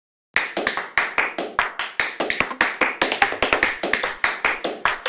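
Percussion opening a music track: a fast, regular pattern of sharp clap-like hits, several a second, starting suddenly about a third of a second in.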